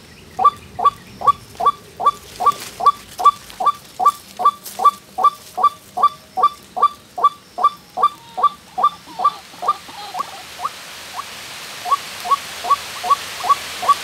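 White-breasted waterhen (ruak-ruak) calls, a monotonous string of repeated notes about three a second, pausing briefly about ten seconds in and then starting again. The evenly timed calls are played to lure waterhens to the snares.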